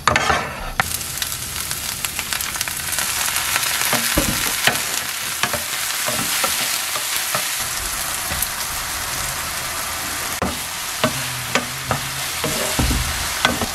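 Fish cake pieces and sliced onion sizzling in a nonstick frying pan, stirred with a wooden spatula that scrapes and knocks against the pan now and then. The sizzle gets much louder about a second in.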